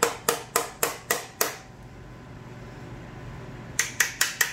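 Ball-peen hammer striking a steel connecting rod cap on the crankshaft of a worn 305 V8, knocking the cap loose: six quick metallic blows, about four a second, then a pause and four more near the end.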